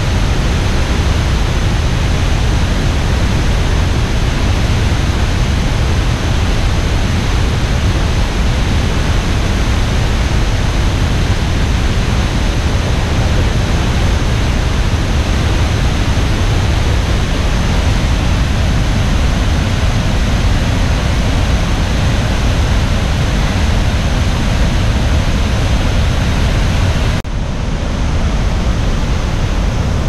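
Roar of Iguazu Falls: a loud, steady rush of falling water, heaviest in the low end, with a brief dip in the hiss near the end.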